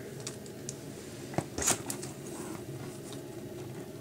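Bagged comic books being handled and laid down side by side: a few short rustles and taps, the strongest about a second and a half in, over a low steady hum.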